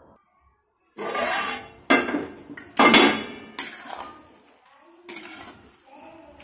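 Metal clattering and scraping in a kadhai: a metal plate lid and a metal spatula clank against the pan, beginning about a second in with several sharp loud clanks, then the spatula scrapes through thick, nearly cooked sarson ka saag more quietly.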